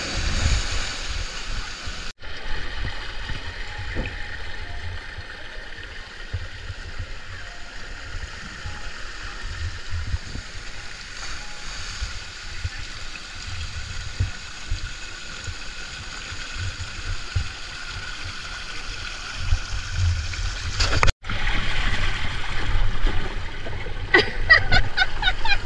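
Outdoor pool and water slide sound in three cut-together parts. First a splash as a child lands in the pool at the foot of a slide. Then steady outdoor poolside noise with a low rumble. From about 21 seconds in, louder rushing water on a blue slide, with voices near the end.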